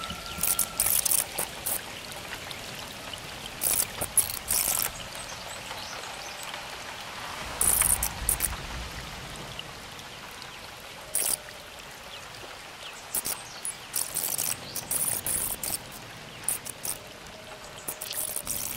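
Rain falling with water running, heard as a steady hiss with irregular louder bursts of high-pitched hiss.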